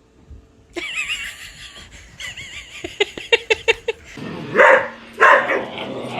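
A dog whining in a wavering high pitch, a run of quick clicks, then the dog barking three times, about two-thirds of a second apart.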